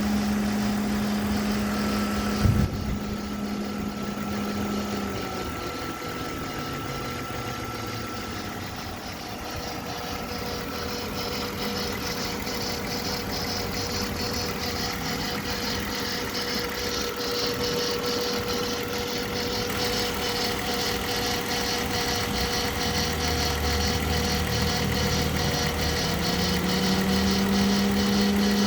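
BMW E39 520i's straight-six engine running with the strange noise it is filmed for: a steady whining tone that falls away a few seconds in and climbs back near the end, with a sharp knock about two and a half seconds in and fine regular ticking in the second half.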